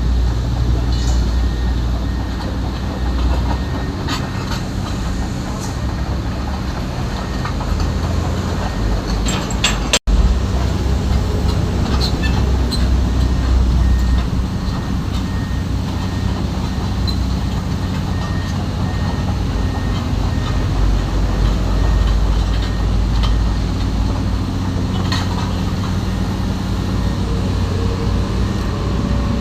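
Heavy diesel machinery running steadily with a low hum, with occasional sharp metallic clanks and clicks.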